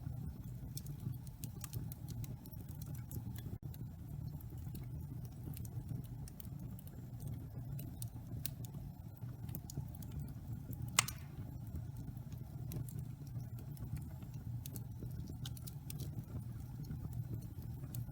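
Wood fire in a fireplace crackling: a steady low rumble of flames under irregular small crackles, with one sharper pop about 11 seconds in.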